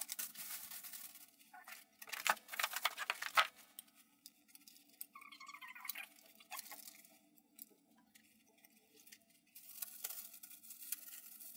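Light rustling of plastic packaging and scattered clicks and taps as plastic weather-station parts are handled and set down, in short bursts, with a brief squeak about five seconds in.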